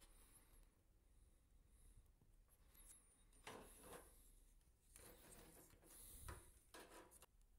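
Near silence with faint handling noises: a few soft rustles and light knocks in the second half as the electric radiator's plastic housing and parts are moved.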